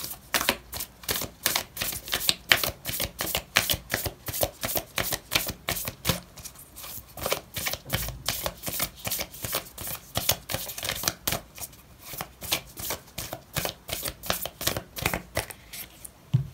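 A deck of oracle cards being shuffled by hand, a steady run of quick card flicks and slaps, several a second.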